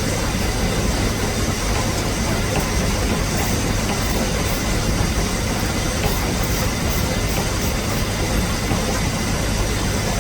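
An engine running steadily, a low hum under a constant loud hiss.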